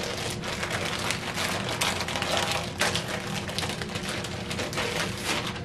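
Clear plastic bag crinkling and rustling with dense, continuous crackle as a new coiled Teflon MIG liner is unwrapped and pulled out of it.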